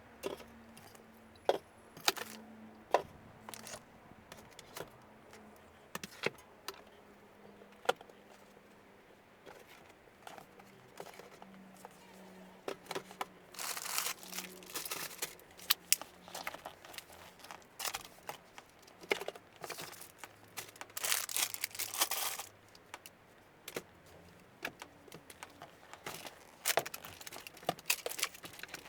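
Handling noises: rustling and crinkling with scattered sharp clicks and knocks, over a faint steady low hum.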